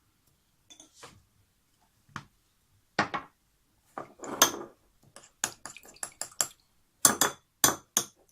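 A teaspoon clinking and knocking against a small dish as a spoonful of honey is added: scattered taps at first, a quick run of light clinks just past the middle, and three louder knocks near the end.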